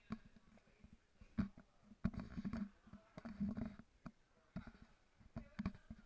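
Footsteps of several people walking on rough rock, irregular knocks and scuffs inside a lava tube, with faint voices of the group now and then.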